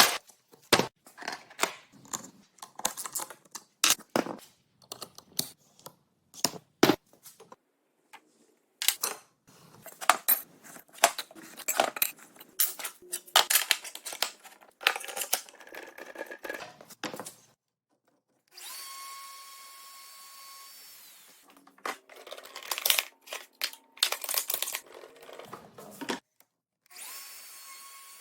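A run of sharp clicks and knocks from tool and workpiece handling, then a Festool OF 1400 plunge router running in three short spells with a steady motor whine.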